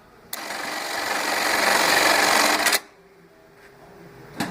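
Juki LK-1900A computer-controlled bar-tacking machine stitching a 3/4 by 3/4 inch box-and-cross pattern at high speed. It runs for about two and a half seconds, stops abruptly, and is followed by a couple of sharp clicks near the end.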